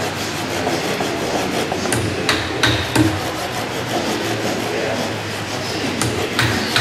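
Hammer knocks and clatter of work on a wooden Wang boat: a few irregular sharp strikes, three close together about two and a half seconds in and two more near the end, over a steady workshop din.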